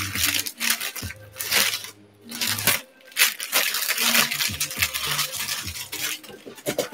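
Plastic wrapping crinkling and rustling in irregular bursts as it is handled and pulled off a packaged item, with brief pauses.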